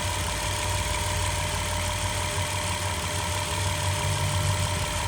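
2008 Dodge Caravan's 3.3-litre V6 idling with a steady low drone while misfiring on cylinder 3, a fault the mechanic puts down to the intake valves.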